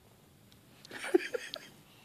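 A young child's short, breathy vocal outburst about a second in, lasting under a second, with near quiet before it.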